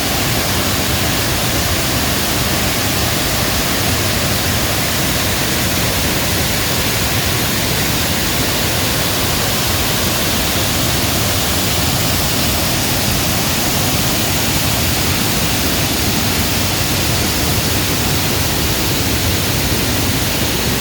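Water released from a dam, rushing and churning into a canal: a loud, steady rush of white water.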